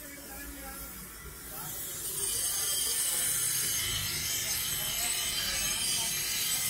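Electric bench grinder running, with a steel butcher's knife blade pressed against its grinding wheel; about two seconds in the grinding gets louder and settles into a steady hiss.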